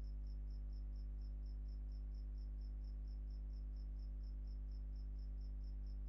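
Steady, evenly repeated high-pitched chirping, about five chirps a second, over a continuous low electrical hum.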